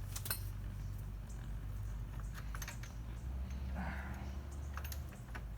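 Light, scattered metallic clicks and clinks from small motorcycle parts and tools being handled while a rear axle is being removed, over a low steady hum.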